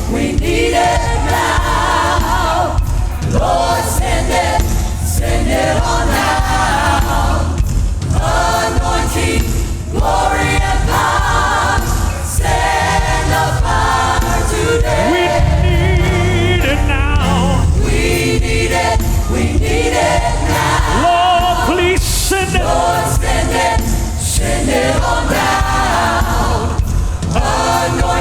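Choir singing a gospel worship song with band accompaniment: sung phrases with vibrato, a few seconds each, over steady bass and drums.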